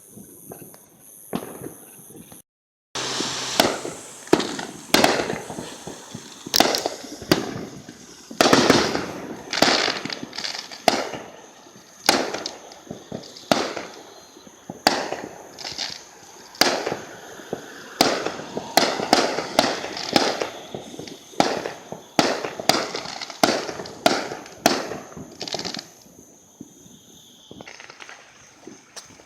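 A rapid, irregular barrage of firework explosions: sharp bangs one after another, several a second at their thickest. They begin about three seconds in and die away a few seconds before the end.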